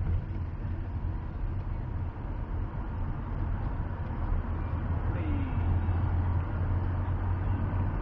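Steady low rumble of a moving car, its engine and road noise heard from inside the cabin.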